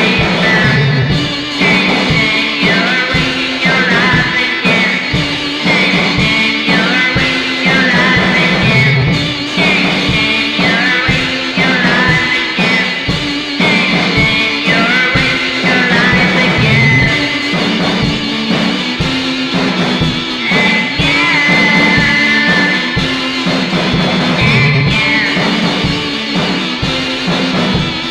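Lo-fi garage rock song playing: a steady drum-kit beat under sustained keyboard and guitar notes, with a sung vocal line.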